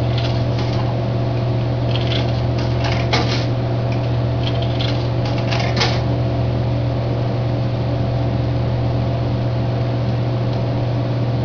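Steady electrical hum of a vending machine, with several bunches of short clicks in the first six seconds as its buttons are pressed.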